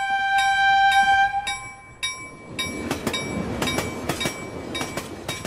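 Train horn blowing a steady note for about two seconds while a ringing clang repeats about twice a second. After that, railcar wheels rumble and clack on the track as the train passes.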